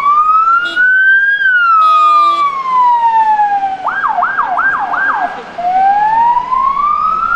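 Ambulance's electronic siren wailing in slow rising and falling sweeps, switching about four seconds in to a fast yelp of four quick sweeps, then rising again in a slow wail.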